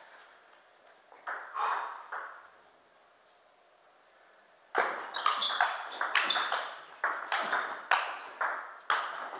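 Table tennis rally: the ball clicks sharply off the bats and the table in quick alternation, about two to three hits a second, starting about halfway through after a quiet pause. A few scattered ball clicks come in the first two seconds.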